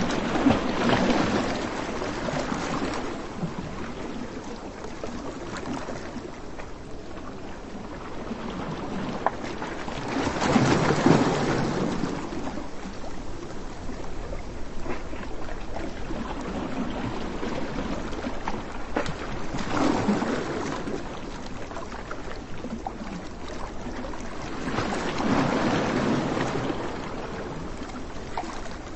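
Surf on a sandy beach: a steady wash of sea noise that swells four times as waves break and run up the shore.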